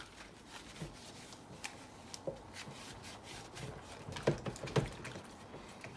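Faint rubbing and scrubbing of a plastic S&P extractor fan cover with a rubber-gloved hand in soapy water, with scattered light clicks and knocks as it is handled.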